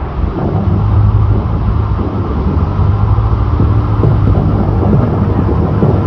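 Steady roar of a large waterfall close by, over the low, even hum of a Bratt jet boat's engine running at low throttle.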